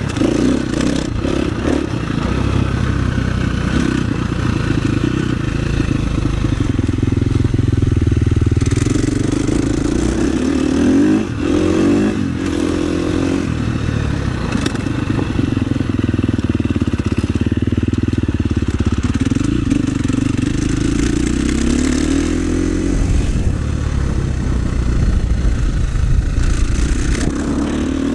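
KTM 350 SX-F's single-cylinder four-stroke engine running hard on a motocross track, its revs rising and falling repeatedly, with a brief drop in revs about eleven seconds in.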